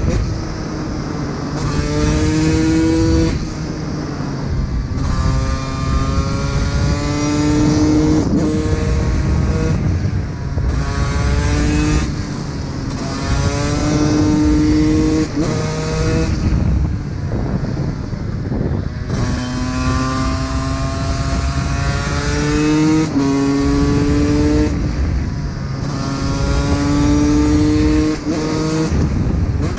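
Two-stroke single-cylinder engine of a 2006 Honda CR125 motard accelerating hard, its pitch climbing through each gear and dropping at every shift, over and over, with a few short lulls off the throttle.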